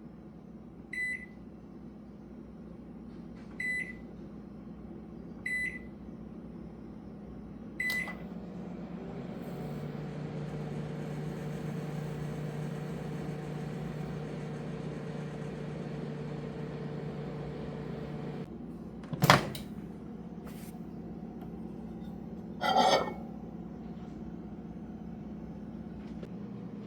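RCA 700-watt countertop microwave: four keypad beeps, then the oven runs with a steady hum for about ten seconds and stops. A loud sharp click follows, like the door latch opening, then a second click and a clunk.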